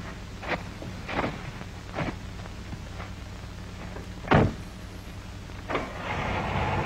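A few knocks and thuds, the loudest a door slam about four seconds in. Near the end a Volkswagen car's engine starts and keeps running.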